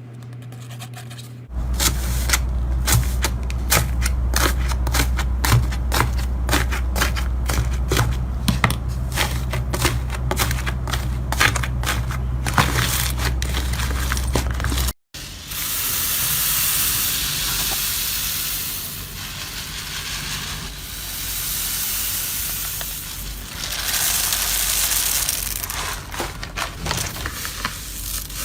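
Slime being squeezed and pressed by hand, with dense crackling and popping clicks; after a cut about halfway through, a softer hissing squish that swells and fades in waves as the slime is worked.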